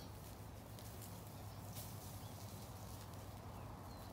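Faint outdoor ambience: a steady low hum with scattered light clicks, and a brief faint high chirp at the start and again near the end.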